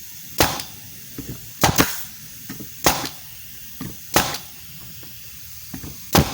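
Central Pneumatic 18-gauge pneumatic brad nailer/stapler firing six sharp shots at irregular gaps of one to two seconds, two of them in quick succession. It is being test-fired with a homemade aluminum depth stop fitted.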